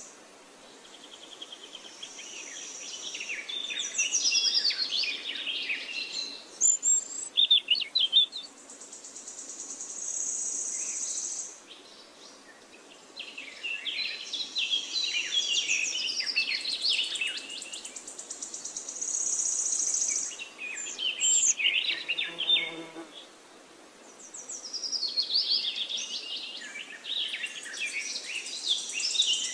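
Birds chirping and trilling in bursts of quick high notes every few seconds, over a steady high-pitched insect-like buzz.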